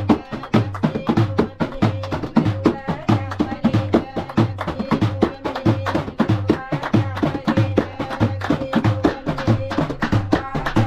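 Live Moroccan folk percussion: a hand-held frame drum beaten in a quick, steady rhythm, with many hands clapping along.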